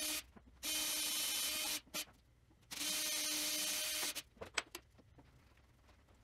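Cordless drill running in short bursts of about a second each at a steady pitch, drilling pilot holes for pan-head screws. A few light clicks follow about four and a half seconds in.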